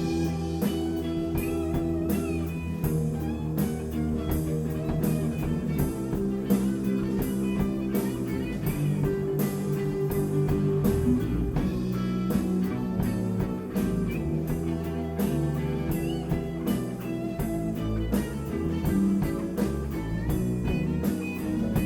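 A rock band playing an instrumental passage with no singing: guitar over a steady drum beat.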